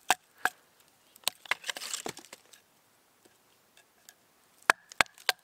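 Sharp wooden knocks of a baton striking a knife as resin-rich fatwood is split into pieces: a few strikes in the first two seconds with a brief rasping noise among them, a pause, then two more knocks near the end.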